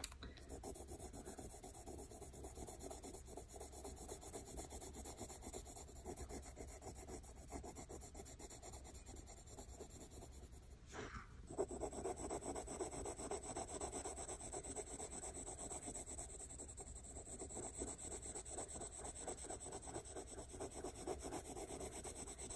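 Wax-based Prismacolor coloured pencil shading with light, rapid back-and-forth strokes on toothy cartridge paper: a soft, continuous scratching rub. It breaks off briefly about halfway, then resumes a little louder.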